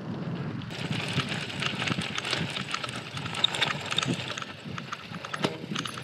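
Mongoose Selous mountain bike moving over rough ground: a steady crunching noise with many sharp clicks and rattles.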